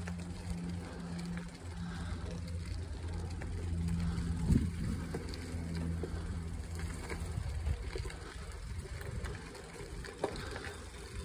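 Bicycle rolling over a gravel trail: tyre crunch and rattle, with a sharp knock about four seconds in, over a steady low motor hum that fades out about two-thirds of the way through.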